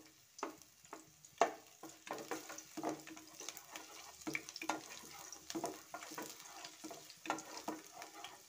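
Chopped ginger and garlic sizzling in hot oil in a kadai, while a wooden spatula stirs and scrapes across the pan in short strokes about twice a second.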